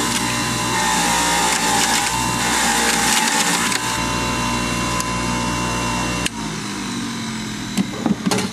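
Centrifugal juicer running, its motor humming steadily while produce is pushed down the feed chute and shredded. About six seconds in the motor is switched off and spins down, followed by a few sharp clatters.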